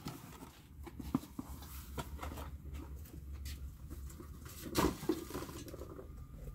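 Faint scattered taps and rustles of items being moved about, over a low steady rumble, with one louder knock about five seconds in.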